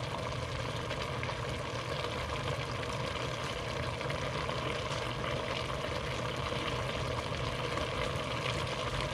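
Steady low hum with an even hiss over it: a pot of chicken, sausage and diced tomatoes sizzling gently on a hot stovetop.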